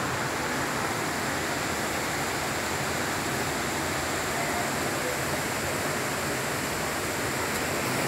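Steady rush of water from a waterfall and its stream among rocks, an even hiss-like sound with no breaks.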